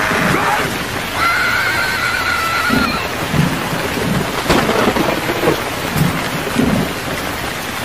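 Rain pouring steadily with rumbles of thunder. A horse whinnies about a second in, and a sharp thunder crack comes near the end.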